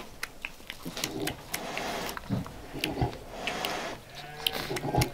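Newborn piglet and sow calling in the farrowing straw: short, high piglet squeals and low sow grunts, with scattered clicks and rustles from the straw.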